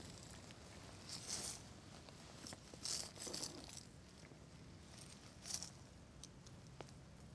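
Faint rustling and crackling in three short clusters over a low steady hum.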